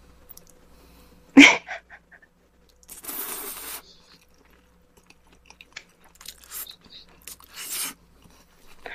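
A person slurping and chewing jjajangmyeon (black-bean-sauce noodles) in a few short noisy bursts: one sharp and loud about a second and a half in, a longer slurp around three seconds, and smaller ones near the end.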